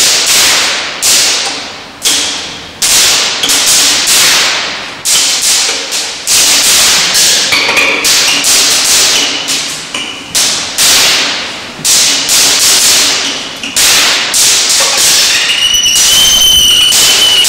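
A long run of loud sharp lightning-like cracks, each dying away over about a second, with a violin playing among them. Near the end the cracks stop and the violin holds high notes.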